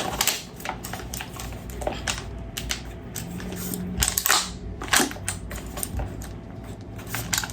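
Clicks and clacks of a VFC HK416A5 gas blowback airsoft rifle being handled, with two louder sharp snaps about four and five seconds in.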